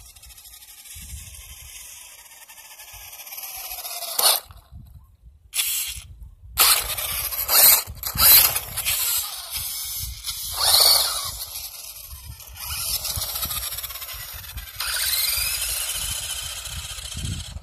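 Toy remote-control car's small electric motor whining in several spurts, its pitch rising and falling as the car speeds up and slows, with a few sudden loud peaks.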